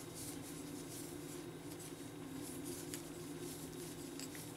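Faint rubbing and a few soft ticks of a crochet hook working yarn, over a steady low hum.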